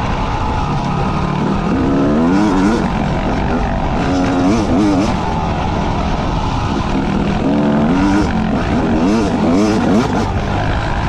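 Motorcycle engine running under riding load, its pitch swinging up and down in repeated quick revs as the throttle is worked, over a steady rushing noise.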